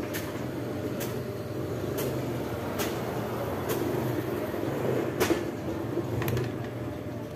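Sharp clicks of hand pliers working a thin wire, roughly one a second, the loudest about five seconds in. A steady low hum runs underneath.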